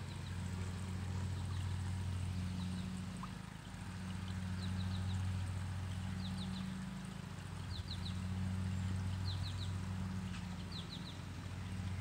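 Steady low trickle of a small brook, with a bird calling in short groups of three or four quick high chirps, repeated every second or two from about four seconds in.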